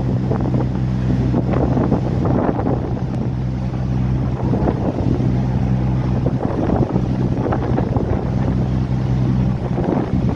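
A boat's engine running steadily, with water splashing along the hull and wind buffeting the microphone.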